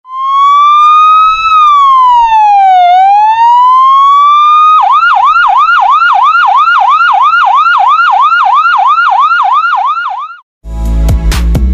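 Ambulance electronic siren: a slow wail rising and falling over several seconds, then switching about five seconds in to a fast yelp of about four sweeps a second. Music starts near the end.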